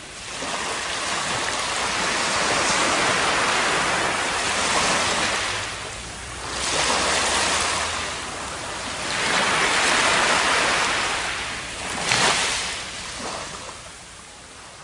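Surf washing up on a sandy beach: the rush of water swells and ebbs every few seconds, with the strongest wash about twelve seconds in, then fades out near the end.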